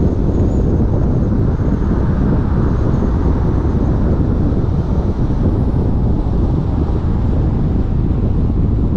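Steady wind buffeting on the microphone of a camera mounted outside a car at freeway speed, a dense low rumble mixed with tyre and road noise.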